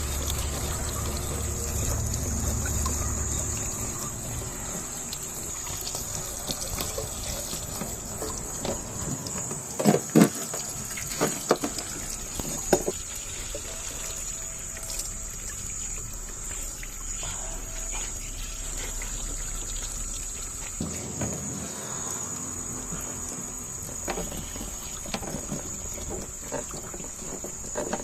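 Water running and trickling, with a few sharp knocks about ten to thirteen seconds in, over a steady high-pitched whine.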